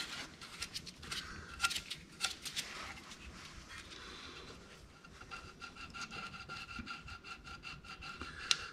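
Single-edge razor blade scraping the remains of the old fibre gasket and its adhesive off the aluminium crankcase mating surface of a Briggs & Stratton Intek V-twin, by hand. It goes in short scratchy strokes that come in clusters, then a quicker, even run of strokes in the second half.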